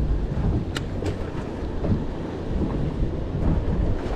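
Steady low rumble of a fishing boat's engine mixed with wind on the microphone, with two sharp clicks about a second in.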